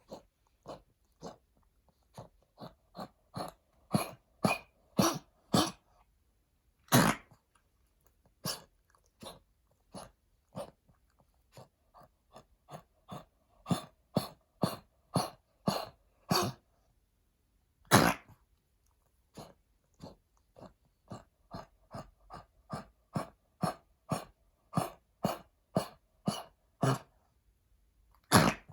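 Pekingese dog coughing over and over in short, sharp coughs, about two a second in runs, a few of them much louder. It is a chronic cough put down to lung damage from heartworm disease and its treatment.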